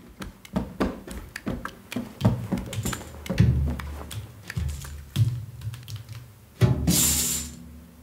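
Film soundtrack with Foley playing back: a run of small irregular clicks and knocks over a low hum, and a louder, noisy rush lasting about a second near the end.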